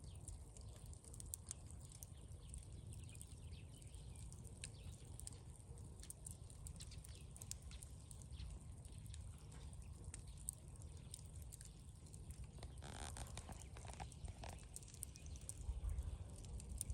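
Campfire crackling faintly, scattered sharp pops and snaps over a steady low rumble.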